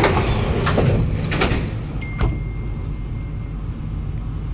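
Passenger doors of a Kawasaki-CRRC Sifang C151A MRT car sliding shut with several hard knocks in the first two and a half seconds, over the train's steady low hum. A thin steady tone follows about two seconds in. The doors of this car are known for closing violently.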